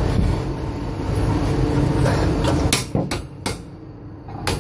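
A steady low machine rumble, then four sharp metallic hammer strikes on steel formwork hardware in the last two seconds, the first three coming in quick succession.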